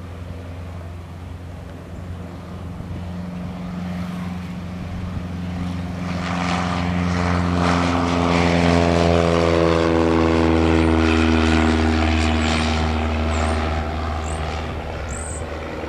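Piper PA-28 Cherokee 140's four-cylinder Lycoming engine and propeller at full takeoff power. It grows louder as the plane lifts off and climbs past, then its pitch slides down and it fades as it climbs away.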